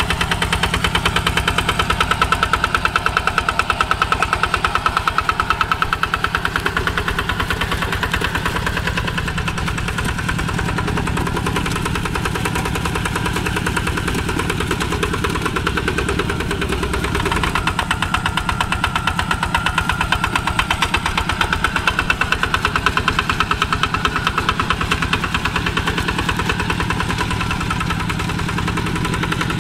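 A walk-behind two-wheel tractor's single-cylinder diesel engine running steadily under load, with a fast, even putter of firing strokes, as it drags cage wheels and a leveller through paddy mud.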